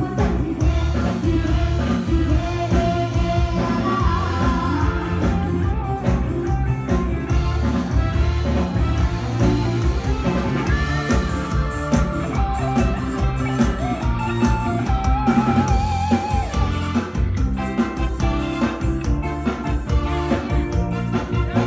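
A singer with a live band playing a Thai pop song, with drum kit and electric guitar under the vocal; about 15 seconds in, the voice holds a long note with vibrato.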